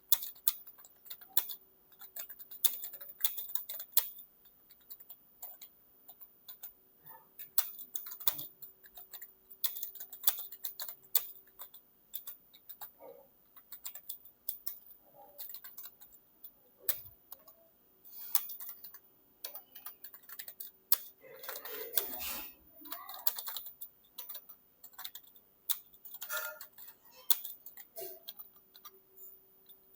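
Fast typing on a computer keyboard: a dense, irregular stream of key clicks, with a brief louder noise about two-thirds of the way through.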